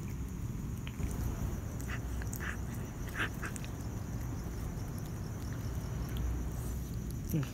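Domestic cat chewing and tearing at a freshly killed rat. A few short, sharp crunching clicks come between about two and three and a half seconds in, over a steady low background noise.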